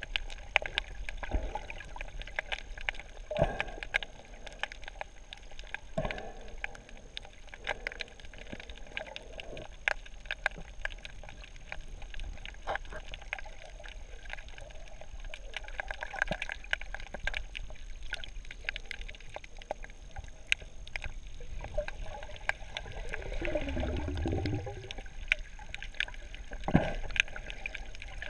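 Underwater sound picked up by a diving GoPro: scattered sharp clicks and crackles over a steady muffled background, and a gurgling rush of a scuba diver's exhaled bubbles for about two seconds near the end.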